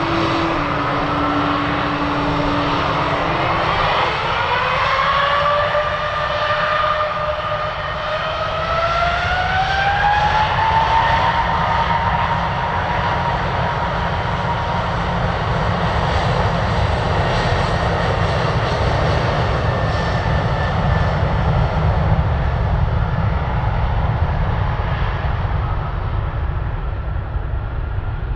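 Boeing 777-300's Pratt & Whitney PW4090 turbofans spooling up from idle to takeoff thrust. A whine begins rising about four seconds in and levels off at a steady pitch after about ten seconds, over continuous low engine noise as the jet starts its takeoff roll.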